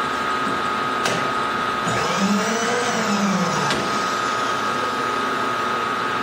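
Milling machine running, its end mill cutting a slot in a steel bar: a steady machine noise with a constant whine, and about two seconds in a brief wavering, rising-and-falling squeal from the cut.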